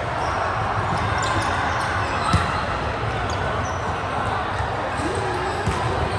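Indoor volleyball play in a gym, over a steady background din: a sharp ball strike about two seconds in, further ball hits near the end, and short high squeaks of shoes on the court floor.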